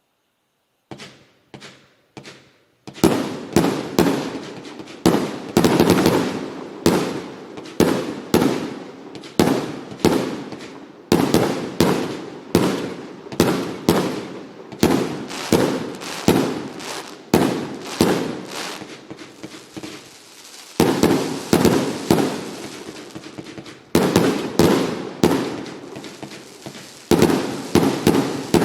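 Fireworks going off in a rapid string of sharp bangs, each dying away before the next. It opens with three lighter pops, has a short hissing lull about two-thirds through, then the bangs resume.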